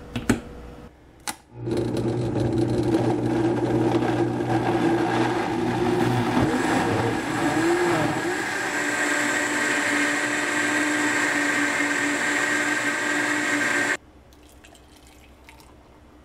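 A lid is clicked onto a blender carafe, then a countertop blender motor starts and runs steadily for about twelve seconds, blending leafy greens, frozen banana and water into a smoothie. Its pitch wavers briefly midway, and it cuts off suddenly.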